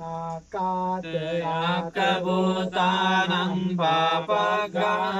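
Buddhist monks chanting Pali paritta (pirith) blessing verses: a slow recitation on a steady, held pitch with long drawn-out syllables. There is a brief pause for breath just under half a second in.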